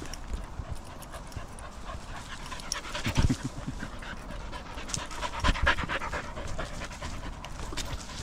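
Dog panting while walking along a dirt path, with two louder bumps about three and five and a half seconds in.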